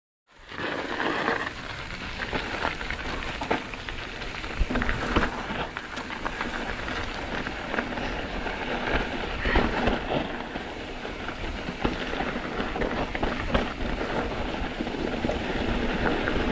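Mountain bike riding over a rocky trail: tyres and frame rattling and crunching over rock and gravel, with several brief high squeals from the bike's brakes.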